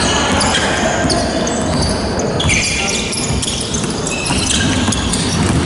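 Basketball game on a wooden gym floor: the ball bouncing on the court and sneakers squeaking in short high chirps, echoing in a large hall.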